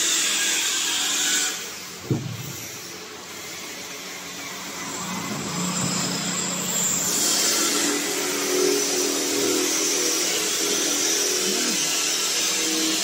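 TPE glove injection moulding machine running: a steady hiss with a machine hum. The hiss falls away after about a second and a half, there is one sharp click about two seconds in, and the hiss and hum build back up again.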